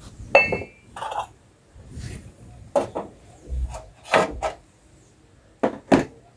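A metal spoon scraping and knocking against a metal pot as chicken pieces in masala paste are stirred. The strokes are irregular, about ten of them, with a short metallic ring just under half a second in.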